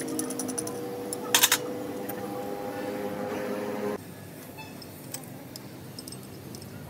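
A steady hum with two sharp clicks about one and a half seconds in; the hum stops abruptly about four seconds in, leaving quieter background with faint scattered ticks.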